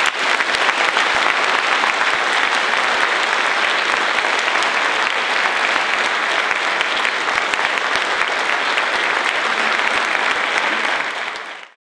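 Audience applauding steadily, a large crowd clapping in a hall, which fades out quickly near the end.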